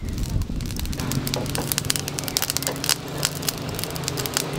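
Crackling fire with frequent sharp irregular pops over a low steady hum, typical of bamboo tubes of sticky rice (khao lam) roasting over a fire.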